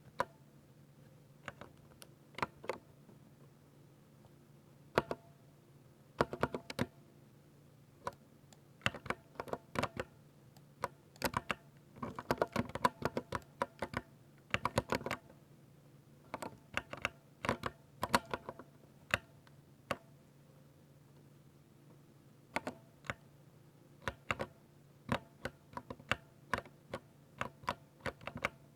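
Typing on a 60% mechanical keyboard with Ducky silver linear switches: quick runs of key clacks in irregular bursts with short pauses between them, over a faint steady low hum.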